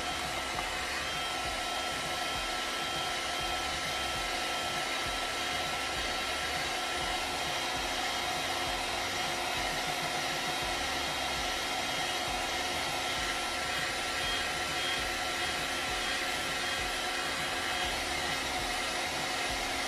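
Ace electric heat gun running steadily, its fan blowing hot air with a faint steady motor whine, softening the edge of a Kydex holster.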